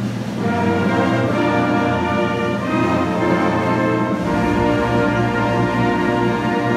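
Concert band playing, with low brass (tubas, euphoniums and trombones) prominent over a held low bass note. The sustained chords change a few times.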